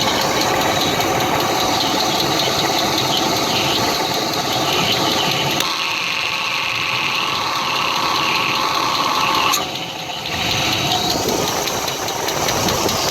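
Engine running with a knock. The sound changes about six seconds in and dips briefly a little before the ten-second mark.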